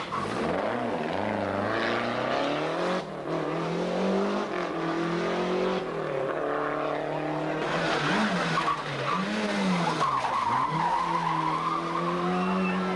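Rally car engines at full throttle on a stage, several cars in turn. The engine pitch drops and climbs again several times, with most of the swings around two-thirds of the way through.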